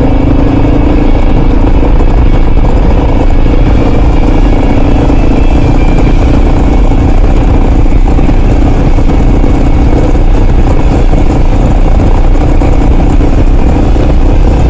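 Kawasaki KLR650's single-cylinder engine running steadily as the motorcycle is ridden along a dirt road, under heavy, unbroken wind and road noise.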